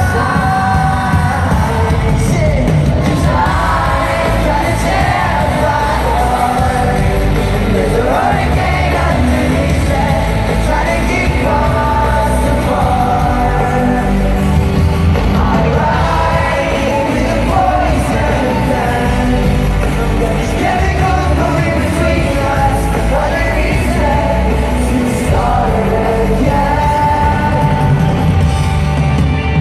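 Pop-rock band playing live with a lead vocal over heavy bass and drums, loud and dense, in a large hall.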